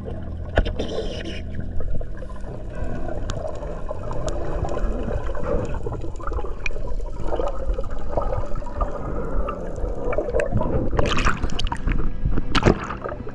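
Underwater sound picked up by a camera in its housing: water gurgling and sloshing with a low rumble and scattered sharp clicks. Louder rushes of water come twice near the end as the camera nears the surface.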